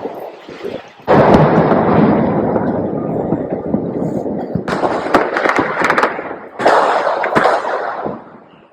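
Fireworks going off: a dense run of crackling bangs starts suddenly about a second in, flares up twice more with sharper bursts, and dies away near the end.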